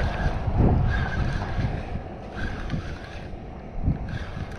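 Wind rumbling on an action camera's microphone, strongest in the first second and easing after it, with a couple of dull knocks, one about half a second in and one near the end.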